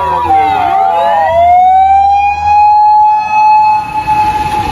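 Emergency vehicle's electronic siren: a fast yelp warble breaks off just after the start, then the tone sweeps down and back up in a slow wail, holds steady for about three seconds, and begins to fall again at the end.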